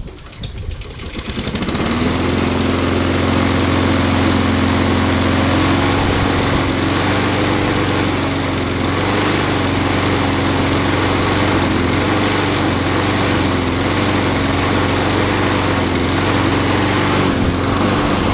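Walk-behind petrol lawn mower engine running steadily while being pushed through grass, its pitch wavering slightly as it cuts. The sound comes up to full level about two seconds in.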